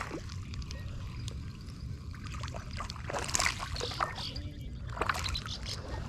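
Water sloshing and splashing in two brief bursts about three and five seconds in, with scattered light clicks over a steady low rumble.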